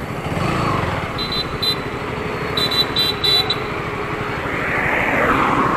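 KTM Duke 200 single-cylinder motorcycle engine running as the bike pulls away, mixed with steady wind and road noise. Several short high beeps come from the traffic between about one and three and a half seconds in.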